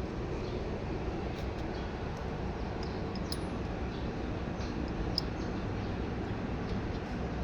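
Steady low background hum with a few faint, light clicks and taps, about three of them, as bicycle parts are handled during headset work.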